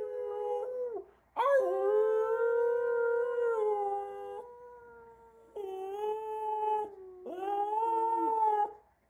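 A small white long-haired dog howling along with a man who howls with it in an 'oo'. The howling comes in long drawn-out notes, each one to three seconds long, with short breaks between them.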